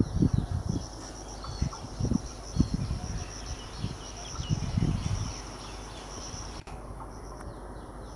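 Insects chirping in a steady, pulsing high trill, over a low background rumble with irregular low thumps in the first five seconds.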